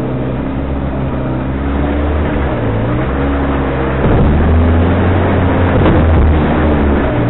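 Off-road 4x4's engine running under load as it drives a rough track, the revs rising and falling. From about four seconds in it gets louder and rougher.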